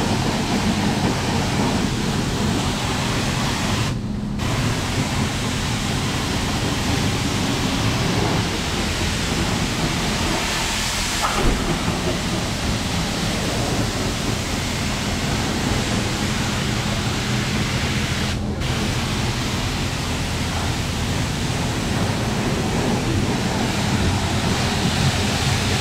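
High-pressure car-wash wand spraying water onto an engine bay to rinse off degreaser: a steady hiss of spray over a low hum. It cuts out briefly twice, about four seconds in and near two-thirds of the way through.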